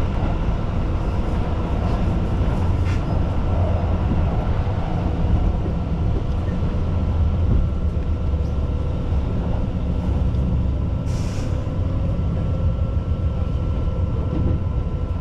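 Inside a moving Keihan electric commuter train: a steady low rumble of wheels on rails with a constant motor hum, and a short hiss about eleven seconds in.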